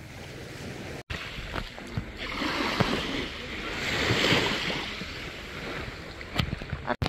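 Small wave washing up over the sand at the water's edge. The surf's hiss swells about two seconds in, peaks, then fades as the water draws back.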